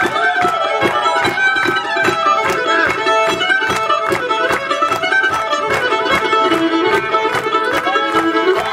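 Old-time string band playing live, the fiddle prominent over banjo, mandolin, guitar and upright bass, with a steady driving beat.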